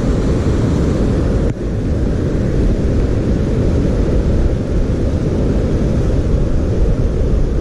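Steady, loud rumbling of wind buffeting the microphone, with a brief dip about a second and a half in.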